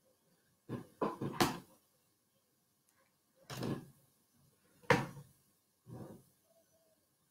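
Handling noise close to the microphone: a quick cluster of knocks and bumps about a second in, then single knocks at about three and a half, five and six seconds.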